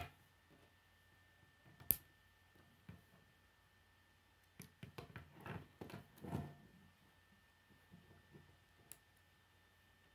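Faint clicks and rubbing of plastic K'nex pieces as a model motorbike is handled and parts are fitted: a sharp click about two seconds in, then a cluster of small clicks and handling noises midway.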